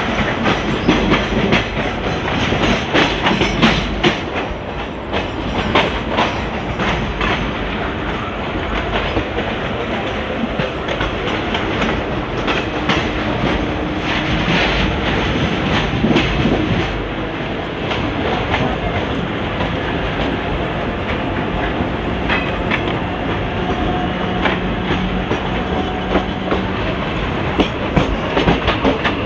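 ICF passenger coach running along the track, its wheels clattering over rail joints in a steady rumble with frequent sharp clicks.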